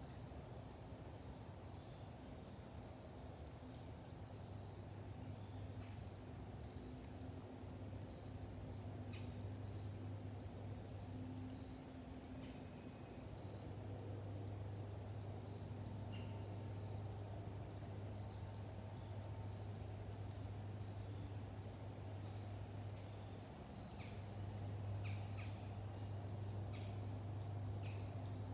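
Insect chorus of crickets: a steady, unbroken high-pitched trill. A low hum runs beneath it and drops out briefly now and then.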